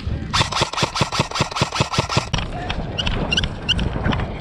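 An airsoft rifle fires a rapid, even string of about a dozen shots, roughly seven a second, ending about halfway through. Scattered fainter shots and clicks follow.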